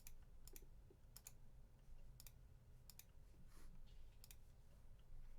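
Faint, irregular clicks from a computer mouse and keyboard, roughly one every half second to a second, over a low steady hum.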